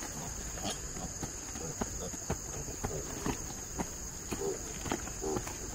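Crickets chirring in a steady high drone, with scattered short clicks and a few short grunts from piglets in the second half.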